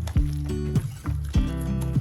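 Background music with a steady beat: held notes over a deep kick drum.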